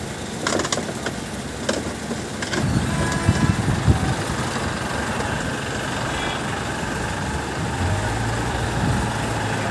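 Recovery crane truck's engine running steadily. It gets louder about two and a half seconds in, with a few sharp knocks in the first seconds.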